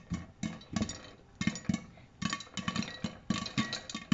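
Popcorn kernels popping in a covered pan on the stove: sharp, irregular pops a few times a second.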